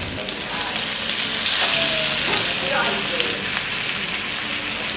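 Besan-coated okra pieces sizzling steadily as they shallow-fry in hot oil in a pan, turned with a spatula.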